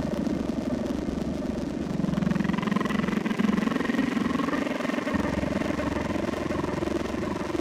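A vehicle engine running steadily, a rapid pulsing drone, with a wavering higher whine that comes in about two seconds in.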